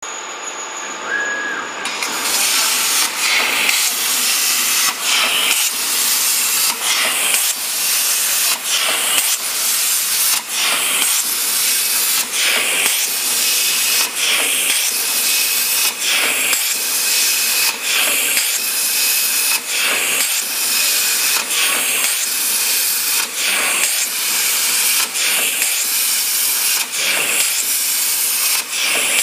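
JCUT-1325 CNC plasma cutter's torch hissing loudly as it cuts stainless steel sheet. The hiss starts about two seconds in and briefly breaks about once a second as the torch cuts a row of small holes.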